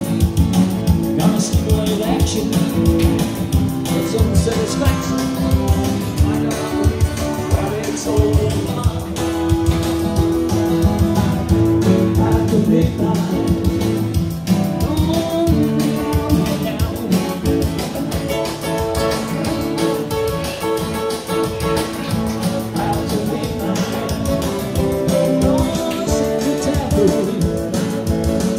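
Live music from two acoustic guitars strummed together, with a man singing over them.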